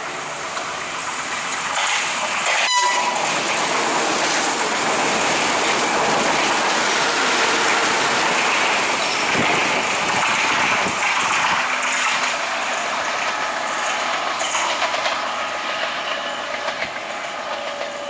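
Diesel multiple unit train passing at speed, its wheels clattering on the rails with a loud rushing noise. The noise builds over the first few seconds and eases a little near the end.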